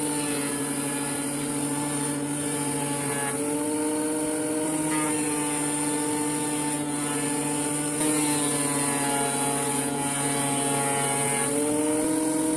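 Harbor Freight Bauer thickness planer running with a steady motor whine while planing hardwood boards, its pitch shifting slightly a few times.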